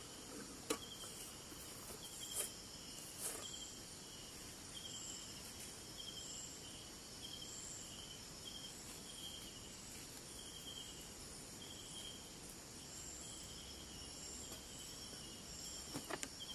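Night insects: crickets chirping, a steady high drone with a short repeated chirp about every two-thirds of a second, and a few faint clicks in the first few seconds.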